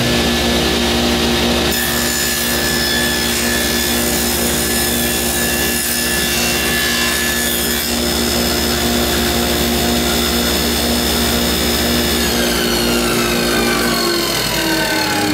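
Table saw running with a dust collector, its blade ripping through a plywood panel held down by spring-loaded rollers. About twelve seconds in, the saw's whine starts falling in pitch as it winds down, while the dust collector's steady hum continues.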